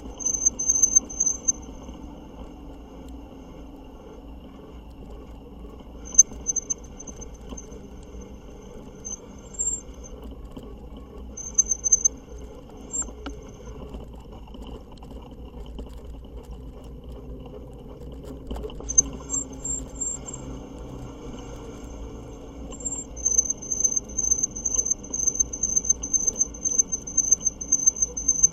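A high-pitched squeal from the fat-tire e-bike, pulsing rapidly, in short spells at first and then without a break near the end, over a steady low rumble of riding.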